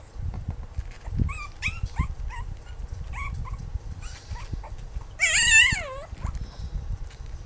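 Maltipoo puppy whining and yipping to get at a treat held out of reach: several short high yips in the first few seconds, then a louder, longer wavering whine that drops in pitch a little past halfway.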